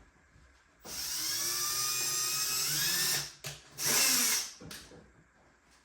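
Power drill making small holes for the blind's bracket screws: one run of about two seconds with the motor's pitch rising, then a short second burst.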